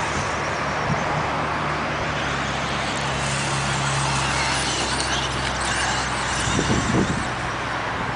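Electric RC buggies and truggies racing, their brushless motors whining up and down over steady running noise. A few knocks come about two-thirds of the way through.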